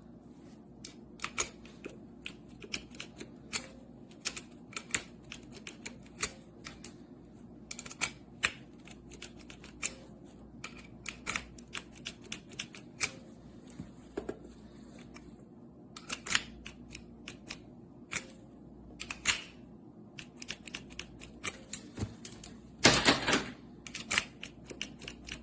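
Irregular sharp clicks and taps, a few a second, over a faint steady hum, with a louder scraping cluster about 23 seconds in.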